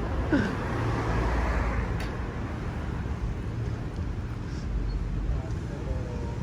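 Road traffic noise, with a vehicle passing that swells and fades in the first couple of seconds, over a steady low rumble.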